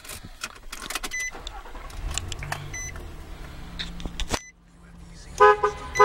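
The Nissan Frontier's 4.0-litre V6 being started: a couple of seconds of cranking that breaks off as the engine catches and settles into a low idle. Near the end the truck's horn gives two short toots.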